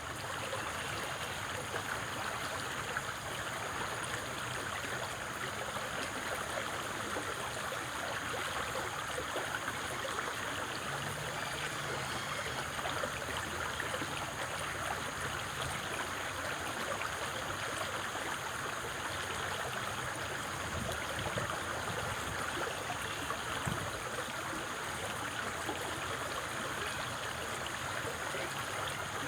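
Steady, even rushing of flowing water, unchanging throughout.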